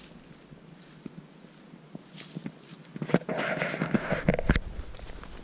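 Footsteps through dry fallen leaves, quiet at first, then a louder stretch of rustling, crackling steps from about halfway until shortly before the end.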